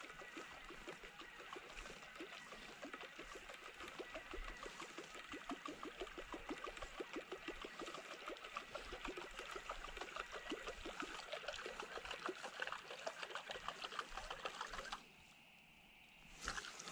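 Night-time chorus of calling animals, a dense, continuous rapid clicking. It drops out for about a second and a half near the end, then comes back abruptly.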